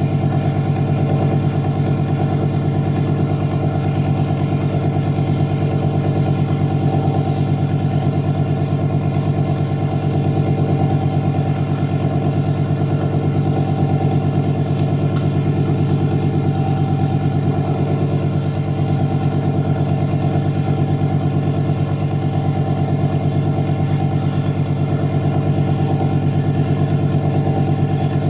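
Steady hum of a motor spinning a disc of neodymium magnets at constant speed under an aluminium plate, the rig of a magnetic eddy-current heater.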